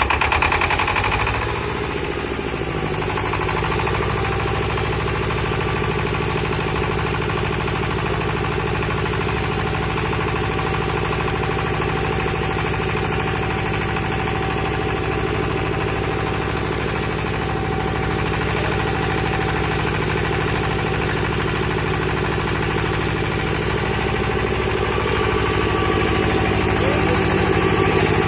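A 15 kVA diesel generator set running steadily just after being self-started. Its engine settles from a brief start surge to an even run within the first two seconds, and gets slightly louder near the end.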